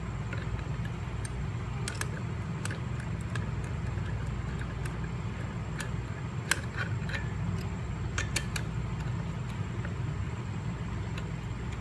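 Scattered light metallic clicks and clinks of hand tools and parts as the brake caliper bracket bolts are tightened, over a steady low hum.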